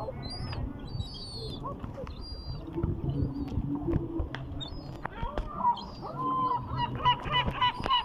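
Large gulls calling, a string of short honking calls that come thicker and louder in the second half.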